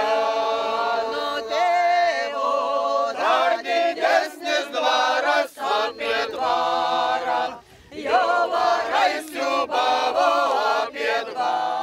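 A mixed group of men and women singing together unaccompanied, in long sung phrases with one brief pause for breath a little past the middle.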